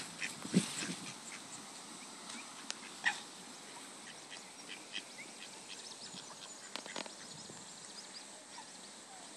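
Waterbirds on a pond, mallard ducks and coots, giving scattered short calls, with a few louder ones about half a second, three seconds and seven seconds in, over a steady faint background hiss.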